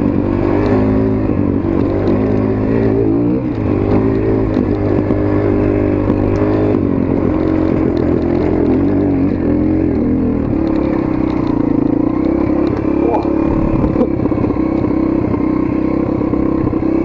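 Dirt bike engine running as it is ridden off-road, its pitch stepping up and down with throttle and gear changes for the first several seconds, then holding steadier.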